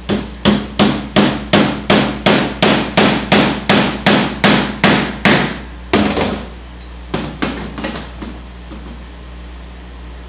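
Hammer driving a tack through canvas into a wooden stretcher bar: about sixteen quick, even blows, roughly three a second, then one harder blow and a few lighter taps before it stops.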